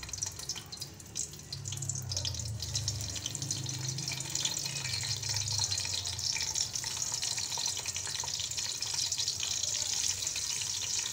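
Stuffed bitter gourds (karela) sizzling as they fry in hot cooking oil: a steady hiss full of fine crackles, with a low rumble for a few seconds in the first half.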